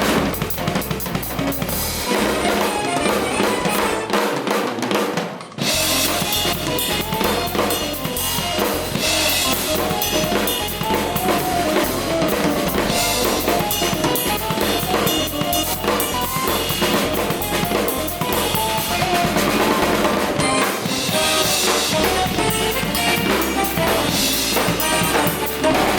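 Music led by a full drum kit, with snare, bass drum and cymbal hits over pitched instruments. It dips briefly about five seconds in, then carries on.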